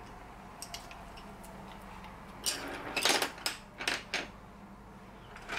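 Handful of Staedtler Noris wooden coloured pencils clicking and clattering against one another as they are handled and set down: a few light ticks, then a cluster of sharp clicks between about two and a half and four seconds in.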